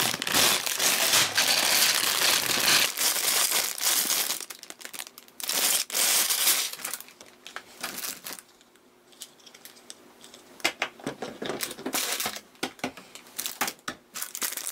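Clear plastic bags full of loose plastic building bricks crinkling as they are handled, loudest in the first few seconds and again around six seconds in. Later it goes quieter, with short clicks and knocks of parts being handled.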